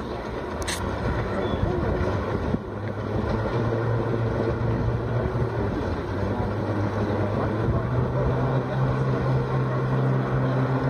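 Jet ski engine running steadily, driving the water jet that powers a flyboard through its hose. Its low hum grows stronger a few seconds in as the throttle is raised. There is a brief click about a second in.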